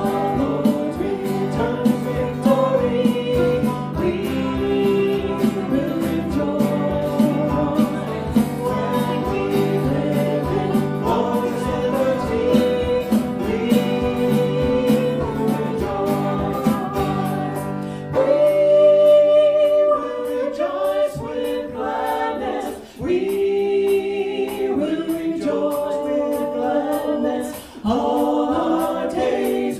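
Live hymn singing: a woman's lead voice with men's voices joining in, over strummed acoustic guitar. About two-thirds of the way through, the low accompaniment drops away and the voices carry on with only light strumming.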